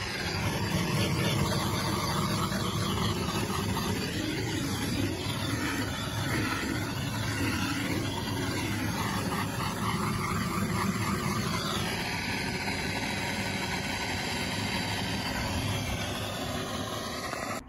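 Gas blow lamp flame burning with a steady rushing, rumbling noise, played on a frozen plastic boiler condensate pipe to thaw the ice blocking it.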